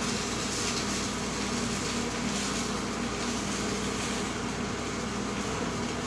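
Steady machine hum with an even hiss underneath, holding at one level throughout, as from a running kitchen appliance or fan.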